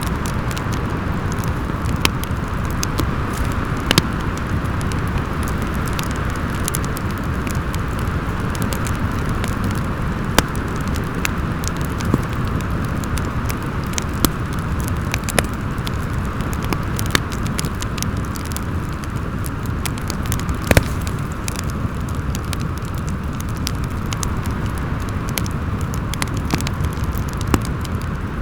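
Steady howling wind of a snowstorm with a wood fire crackling, sharp pops coming at irregular intervals over the constant rush.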